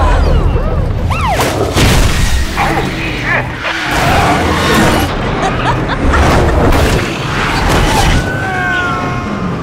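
Film sound effects of a highway pileup: repeated heavy booms and crashing metal as trucks and cars smash into each other, with a deep rumble under the impacts. There are high screeches about a second in and again near the end, and music runs beneath.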